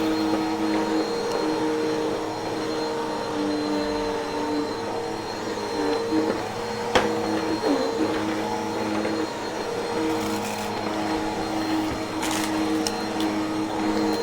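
Vacuum cleaner running steadily: a motor hum with several held pitches and a thin high whine. A sharp click sounds about seven seconds in.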